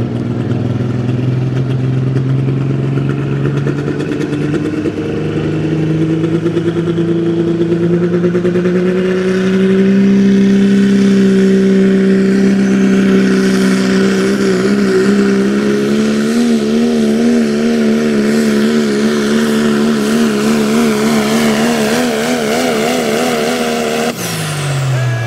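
Ram 4x4 diesel pickup engine at full throttle, pulling a weight-transfer sled. Its pitch climbs over the first ten seconds and holds high, then wavers rapidly for several seconds before dropping sharply near the end as it comes off the throttle.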